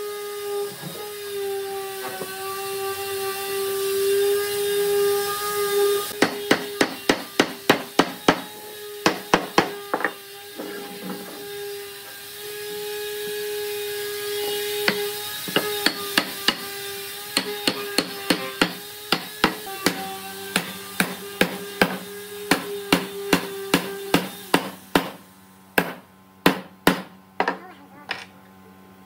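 A wooden mallet striking a wooden frame to knock its joints together, in runs of quick, sharp blows of about four a second with short pauses between runs.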